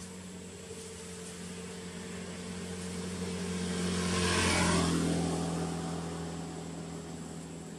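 A motor vehicle driving past. Its engine hum grows louder to a peak about halfway through, drops slightly in pitch as it passes, then fades away.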